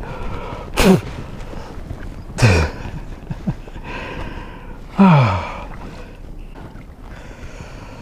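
A man's wordless, breathy vocal sounds, three of them, each falling in pitch like a sigh or a drawn-out exclamation, the last the loudest. A steady hiss of wind or water lies underneath.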